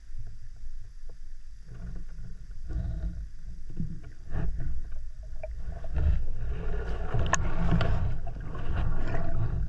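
Underwater sound heard through a waterproof action-camera housing: a low rumble of water movement with scattered clicks and bubbling. The rushing noise grows louder from about six seconds in as the gun and camera push through the waterweed.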